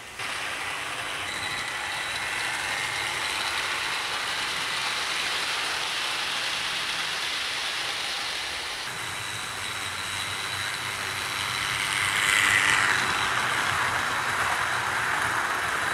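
00 gauge model Flying Scotsman locomotive running on track with a rake of teak coaches: a steady whirr of the motor and rattle of wheels on rail, getting louder about twelve seconds in as the train passes close.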